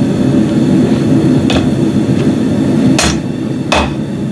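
Hand hammer striking a hot mild-steel scroll on an anvil, three blows (a lighter one about a second and a half in, then two about three-quarters of a second apart near the end), each with a short metallic ring, as the bent scroll is worked back toward flat. A steady low rumble runs underneath.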